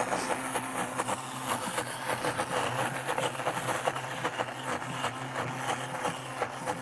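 Countertop blender running steadily, its motor hum carrying a constant fine clatter as a tamper pushes a thick mix of blanched stinging nettles and olive oil down into the blades for pesto.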